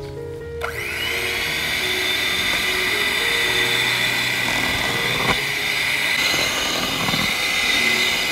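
Electric hand mixer switched on about half a second in, its motor whine rising quickly and then running steady as the twin wire beaters whip a foamy mixture in a steel bowl.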